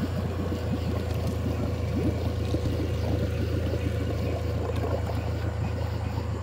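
A steady low motor drone on the boat, with water gurgling and splashing over it.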